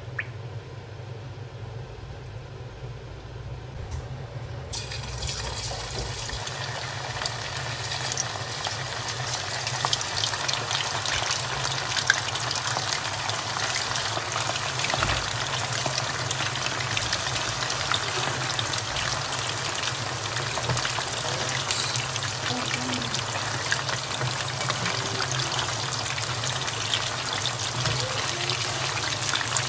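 Pieces of coated beef deep-frying in hot oil in a wok: a dense, crackling sizzle that sets in about five seconds in, builds over the next few seconds, then holds steady. A steady low hum runs underneath.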